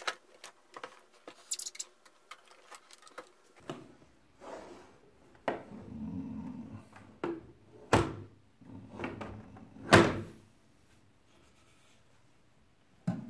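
Bench test instruments being handled and set down, with scattered clicks and knocks from their cases and two louder thuds about eight and ten seconds in.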